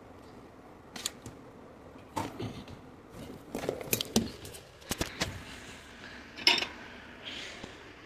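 Kitchen clatter from someone serving cereal: scattered knocks and clinks of a bowl and spoon being handled, with a short rustle near the end.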